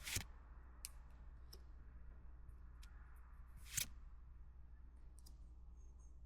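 Pokémon trading cards being handled and flipped through: a few faint clicks and short rustles over a low steady hum, the loudest rustle about four seconds in.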